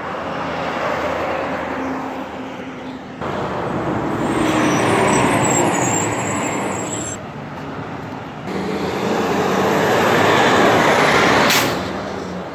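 Diesel engine of a Republic Services rear-loader garbage truck running as the truck passes close by in street traffic, swelling loudest twice. A short hiss comes near the end.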